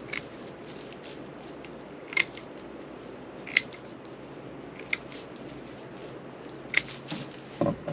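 Scissors snipping through a thick pad of fibrous filter media, five sharp snips spaced a second or two apart, over a steady background hiss. A couple of duller rustles come near the end.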